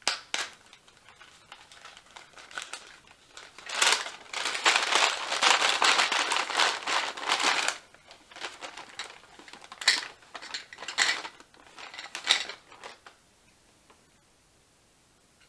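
Brown paper bag crinkling as it is unfolded and opened, with a long stretch of loud rustling about four seconds in, then a few short sharp rustles as a hand reaches inside. It stops about two seconds before the end.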